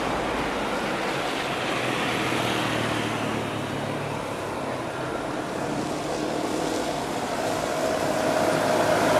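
Jet engine noise from a Boeing 787-8 Dreamliner taking off: a steady rushing roar that eases slightly in the middle, then grows louder toward the end as a steady whine comes up.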